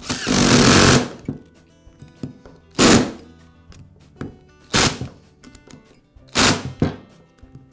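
Power screwdriver driving the gearbox screws of a Metabo angle grinder in short runs: one run of about a second at the start, then three shorter bursts about two seconds apart.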